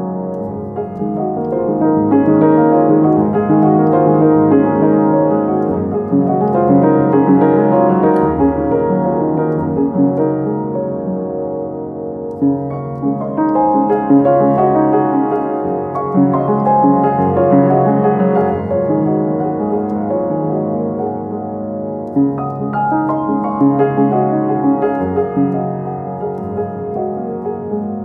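Instrumental piano music with sustained, overlapping notes, swelling and easing in loudness in slow waves.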